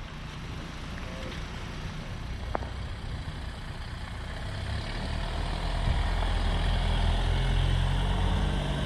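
Car engine running at low speed as the car drives slowly along a dirt track and passes close by. Its low hum grows louder about five seconds in as the car nears.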